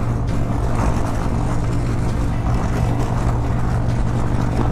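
Harley-Davidson Street Bob's V-twin engine running steadily at highway cruising speed, with wind rush over the rider's microphone.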